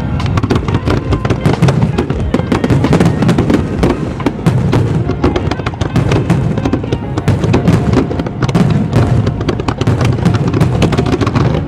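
Fireworks going off in rapid, dense bangs and crackles, many a second and with no pause, mixed with music.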